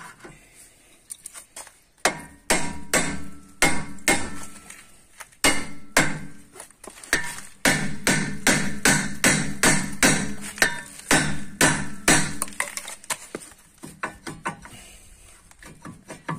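Hammer blows on a car's brake disc mounted on its hub, a long series of sharp metallic knocks about two to three a second, striking the disc to free it. The blows start after a quiet first couple of seconds and thin out to lighter knocks near the end.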